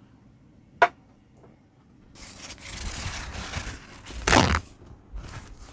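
A single sharp tap about a second in, then a paper towel rustling as it is pulled and torn from the roll, with the loudest tear a little past the middle and a few smaller rustles near the end.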